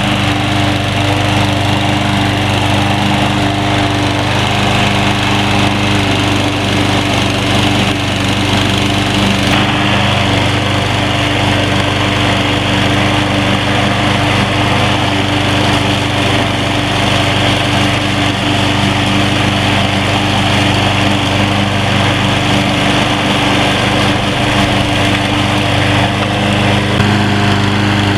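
Troy-Bilt TB230 self-propelled walk-behind gas lawn mower running steadily while it mows and mulches thick, overgrown centipede grass.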